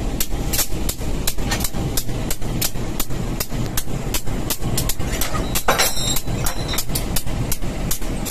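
Two coupled CC 201 diesel-electric locomotives running at idle: a steady engine rumble with a regular beat of about three strokes a second. About six seconds in there is a short burst of hissing.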